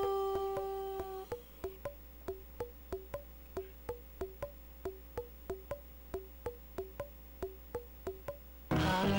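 Electronic music playing from an LMMS project. A held synth note fades out in the first second. It is followed by a sparse pattern of short pitched clicks alternating between two notes, about two or three a second. The full arrangement with bass and drums comes in loudly near the end.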